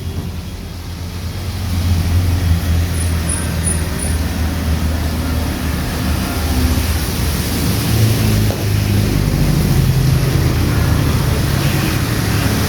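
Heavy rain falling, with motor vehicles driving past on the wet street. The engines swell about two seconds in and again about eight seconds in.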